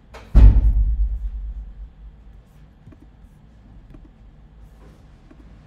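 A single heavy thump with a low rumble that dies away over about a second and a half, then faint room tone with a few small clicks.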